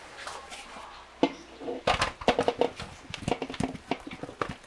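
Steamed sweet potato chunks tumbling out of a metal steamer tray into a metal basin: a quick, irregular run of soft thuds and clatter. There is a single sharp metal knock about a second in.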